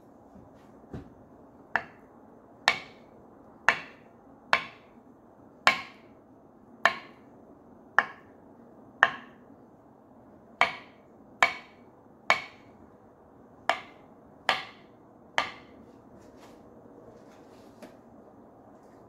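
Kitchen knife cutting through soft avocado halves and knocking on a wooden cutting board: about fifteen sharp taps, roughly one a second, then it stops.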